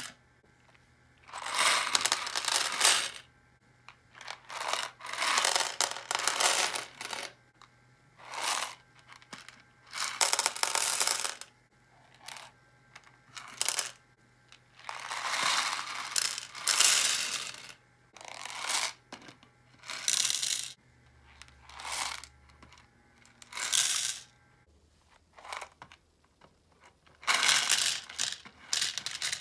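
Small plastic Lego Technic pins clattering as they are poured from a small plastic cup into the compartments of a plastic organiser box, in about a dozen bursts a second or two long with short pauses between.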